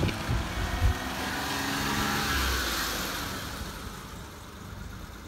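1993 Mitsubishi Minicab Bravo kei van's small three-cylinder engine running as the van drives past and away, loudest about two seconds in and fading toward the end.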